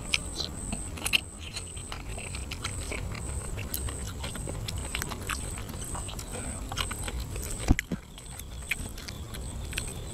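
Close-up eating sounds: a person chewing grilled catfish with wet mouth clicks and smacks, then fingers picking and tearing the fish flesh, with one sharp click about three-quarters of the way through. A faint high tone pulses about twice a second in the background.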